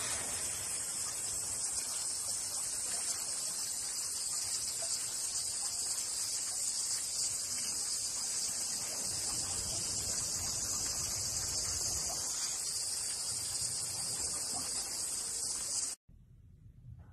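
Steady, high-pitched chirring of insects running without a break, cutting off suddenly near the end.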